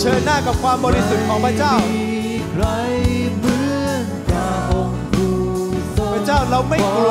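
Live church worship music: a voice sings a gliding melody over held chords and low sustained notes, with drum hits.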